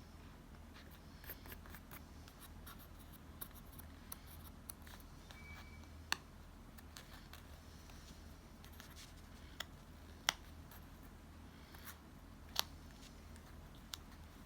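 Faint handling of paper and stationery while a planner page is laid out: soft scratches and ticks, with a few sharp clicks or snips standing out, the loudest about six, ten and twelve and a half seconds in.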